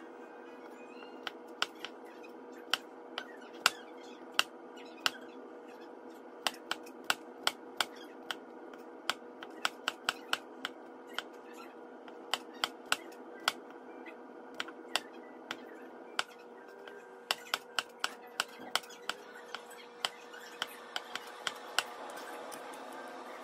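Chef's knife slicing garlic cloves on a plastic cutting board: sharp, irregular knocks each time the blade meets the board, sometimes several in quick succession, with short pauses between runs.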